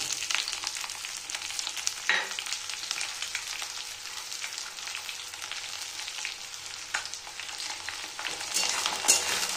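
Sliced onions sizzling hard in hot mustard oil in a metal kadai. The sizzle starts sharply as the onions hit the oil, with a few light knocks of the spatula against the pan.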